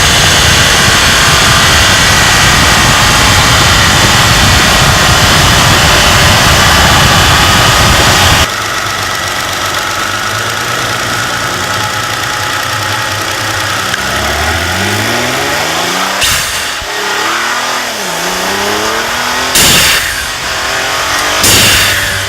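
Nissan GT-R twin-turbo V6 driving. A loud, steady rush of engine and road noise stops suddenly after about eight seconds. The engine then pulls up through the revs with rising pitch, broken three times near the end by short, sharp hissing bursts from the Go Fast Bits blow-off valves venting boost, running fully open.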